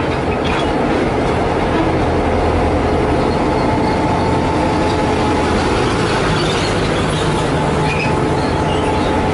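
Diesel-electric CC202 locomotives running steadily at the head of a tank-wagon train: a loud, even engine drone with a held hum and a steady higher tone.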